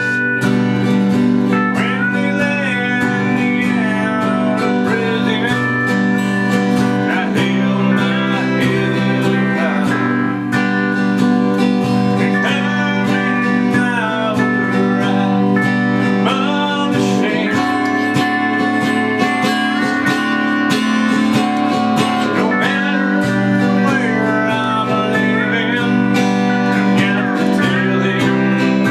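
Live acoustic string music: an instrumental introduction with guitar chords held underneath and a melody line that slides between notes, slide-guitar style. No singing yet.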